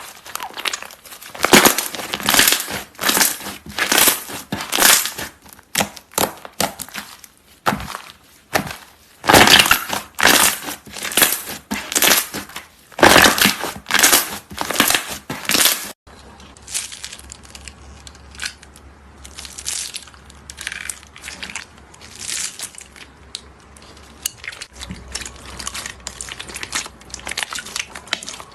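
Crunchy slime being squeezed and pressed by hand, giving repeated loud crunching and crackling strokes. About halfway through it changes to softer, sparser crackling.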